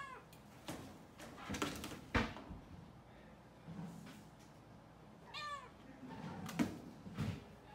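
Cat meowing once, a single rising-and-falling call about two-thirds of the way through, among several sharp knocks and rattles, the loudest about two seconds in.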